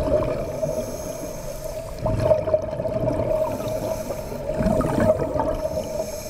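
Underwater scuba sound: exhaled bubbles from divers' regulators gurgling in bursts, about two seconds in and again past the middle, over a steady hum.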